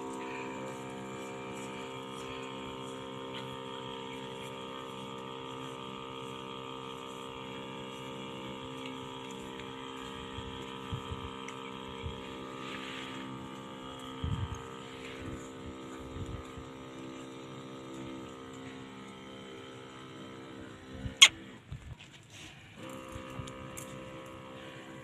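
Battery-powered backpack sprayer's pump motor running with a steady hum as the sprayer is worn in use. About three-quarters of the way through, a sharp click comes and the hum cuts out for about a second, then starts again.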